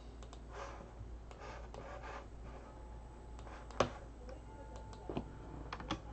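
A few scattered clicks of a computer mouse and keyboard keys, spaced irregularly, with one louder click a little past the middle, over a faint low room hum.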